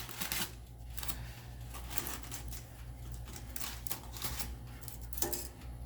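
Irregular light clicks and clatter of a toaster oven's baking tray and cookies being handled as they are taken out.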